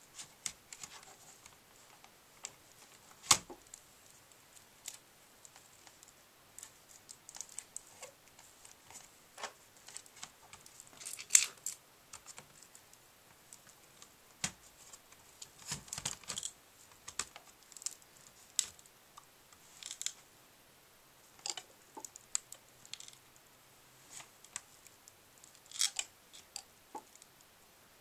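Irregular clicks, taps and short rustles of a Dell XPS M1530's replacement LCD panel being handled and set into the laptop's display lid, with two sharper knocks about three and eleven seconds in.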